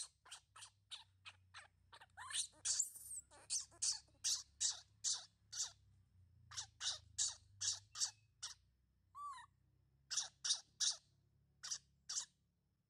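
Baby monkey giving a fast run of short, high squeaks, about three a second, with a short pause and one lower sliding cry about two-thirds of the way through.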